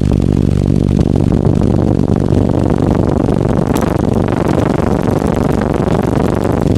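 A car audio system of ten 18-inch Sundown Audio Team NEO subwoofers playing a bass drop at competition level: very loud, steady deep bass.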